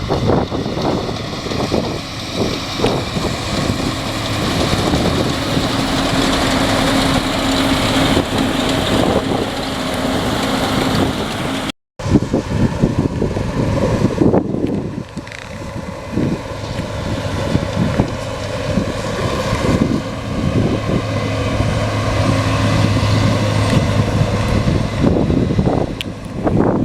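Diesel harvest machinery running steadily, with heavy wind buffeting on the microphone. The sound cuts out for an instant about twelve seconds in.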